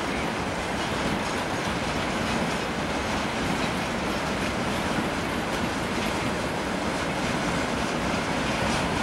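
Freight train of tank cars rolling past: a steady rumble and clatter of the wagons' wheels on the rails.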